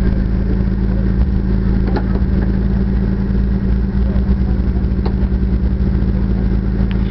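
Jeep Wrangler Rubicon's engine running steadily at low revs as the Jeep crawls over rock. Two short sharp clicks, about two and five seconds in.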